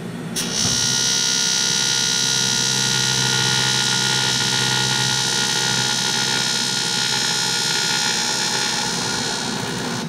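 Eastwood TIG 200 welder's AC arc on aluminium: a steady, loud buzz with a hiss. It strikes with a short click about half a second in and eases off slightly near the end as the foot pedal is backed off.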